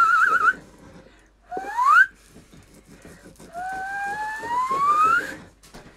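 High, clear whistle-like tones. One ends in a quick warble just after the start, a short rising glide follows about a second and a half in, then a long, slow rising glide near the end. Faint scraping of a knife cutting steak on a wooden board runs underneath.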